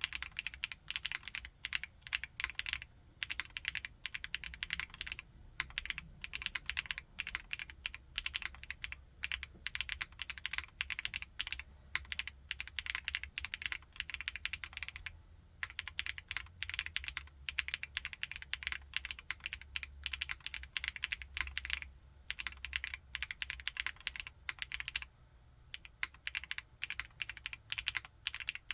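Typing on a Chilkey ND TKL aluminium tenkeyless mechanical keyboard with Kailh Blue Lotus switches: a fast, continuous run of keystrokes, broken by a few short pauses.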